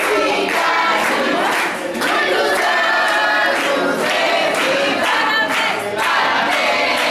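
A crowd singing together in chorus, with hand-clapping about twice a second.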